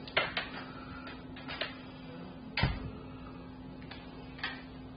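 A few scattered knocks and thumps, the loudest about two and a half seconds in, over a steady low hum.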